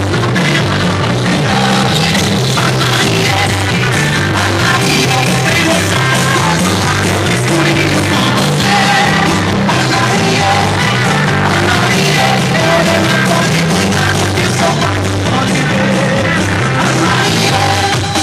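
Loud music with singing and a heavy bass line, played at high volume through a competition car sound system.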